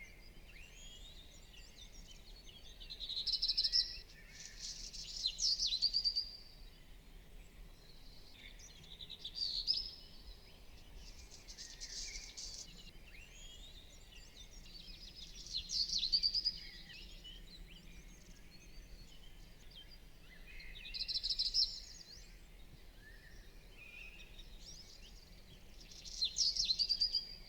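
A songbird singing short phrases of quick, high chirps and trills, about seven phrases spaced a few seconds apart, over a faint background hum.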